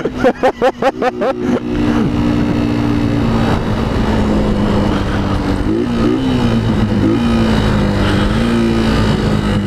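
Motorcycle engine running steadily under way, its pitch dipping and rising slightly midway as the throttle eases and opens. For the first second or so a rapid, wavering whistling sound is heard before the engine comes up.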